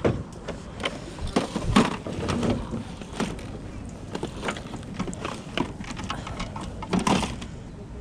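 Irregular clicks and knocks, the handling and clatter of objects, with a busier patch of sound about two seconds in and again near the end.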